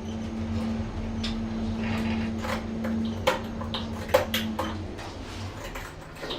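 Passenger lift running with a steady electric hum, a few sharp clicks a little past halfway, and the hum dying away near the end as the car stops.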